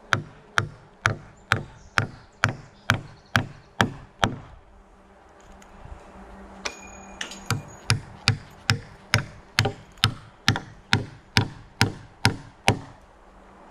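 Steel claw hammer driving nails into timber: two runs of steady blows about two a second, with a pause of a few seconds between. In the pause a few light metallic clinks as the next nail is set.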